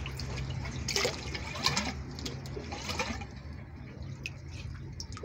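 Water running and gurgling into a plastic water tank, a steady low rush with a few irregular gurgles and splashes.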